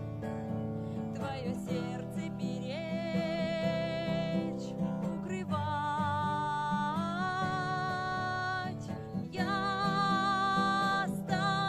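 Acoustic guitar strummed steadily under a voice singing long held notes with vibrato.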